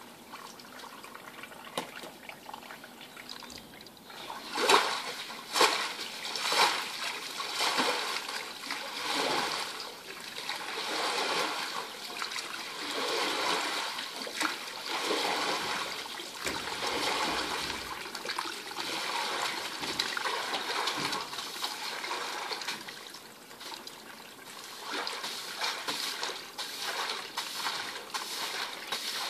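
Shallow water swished and splashed across a drained vinyl pool floor by a push broom, in irregular surges. The sweeping is quieter at first, with a few sharper splashes about five seconds in.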